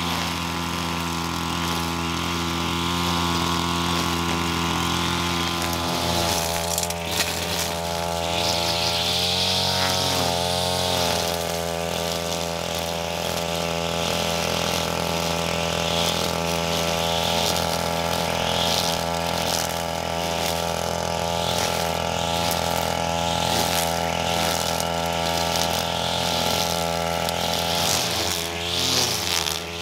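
String trimmer (brush cutter) with a nylon-line head running steadily, its engine speed wavering for a moment about ten seconds in. A hiss of the spinning line slashing through grass and soil comes and goes over the top.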